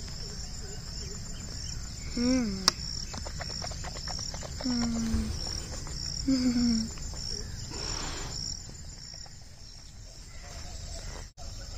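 Insects chirping in a steady high pulse, about three chirps a second, until fading out about three-quarters of the way through. Over them come three short low voice-like calls, the first and last falling in pitch, about two, five and six seconds in, with a sharp click just after the first.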